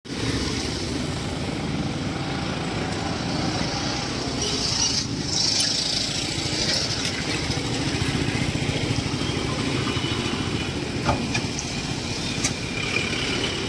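Road traffic: a steady low rumble of vehicle engines, motorcycles and light trucks moving along an unpaved road, with a brief hiss about five seconds in.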